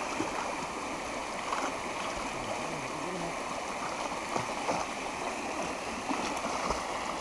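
Creek water running steadily over the shallows, with small scattered splashes from a Labrador wading through it.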